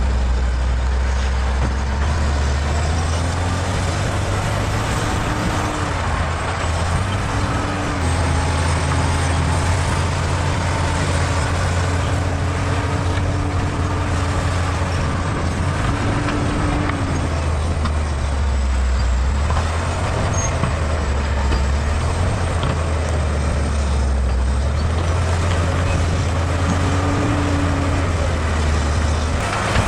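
Bulldozer's diesel engine running hard throughout, its note stepping up and down as the load changes.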